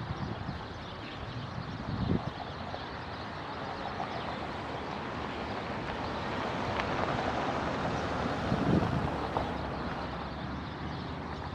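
Strong wind blowing in a steady rush, with two gusts buffeting the microphone, one about two seconds in and one near the end.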